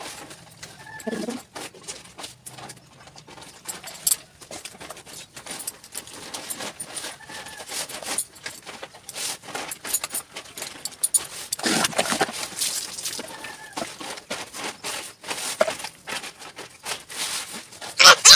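Water splashing and dripping with scattered small clicks while a toddler is bathed from a bucket, louder for a moment about twelve seconds in. A few faint bird chirps sound in the background.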